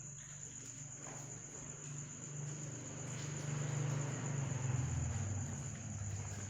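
A steady, high-pitched insect trill like a cricket's, with a low rumble that swells through the middle and fades near the end.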